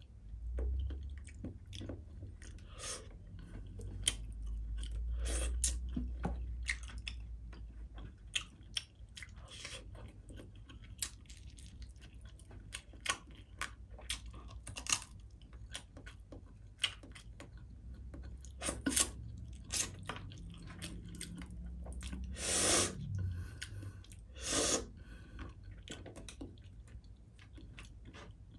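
Close-miked chewing of fried fish eaten by hand: irregular crunches and wet mouth clicks, with two louder bursts near the end.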